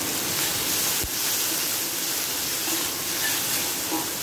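Blended chili-garlic-shallot paste frying with a steady sizzle in a hot wok as a metal spoon stirs it; a single sharp knock about a second in.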